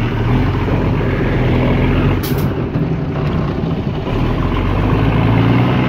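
Mercedes-Benz Unimog truck engine running steadily under the riders on its bed, with a brief hiss about two seconds in.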